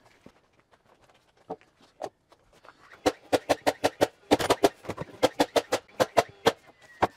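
Cordless framing nailers firing nails into 2x6 wall framing: a few faint clicks, then from about three seconds in a fast, uneven run of sharp shots, several a second, as two nailers work along the frame.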